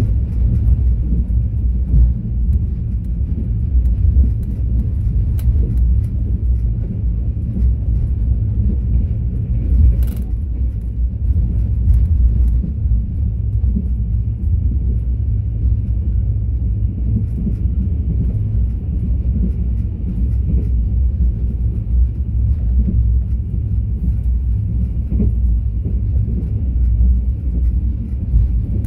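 Mugunghwa-ho passenger train running along the track: a steady low rumble of wheels and running gear, with one brief click about ten seconds in.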